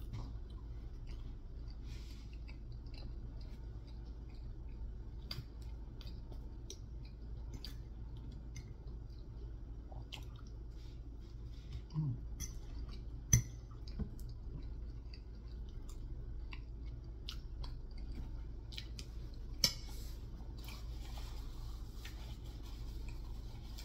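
A man chewing soft food (meatballs in gravy, dressing, mashed potatoes) with small wet mouth clicks, over a steady low hum. A couple of sharp taps of a metal fork on the plate stand out midway through.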